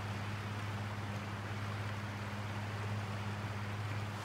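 Steady rushing hiss of creek water with a constant low hum over it; the hum stops abruptly at the end.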